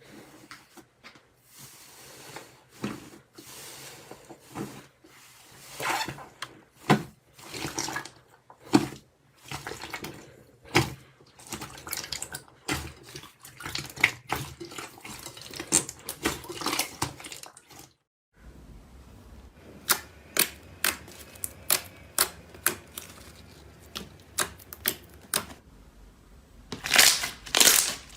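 Slime being squished and pressed by hand, giving irregular sticky clicks and pops. After a sudden break about two-thirds of the way through, the clicks come in a regular run of about two a second, and a louder cluster follows near the end.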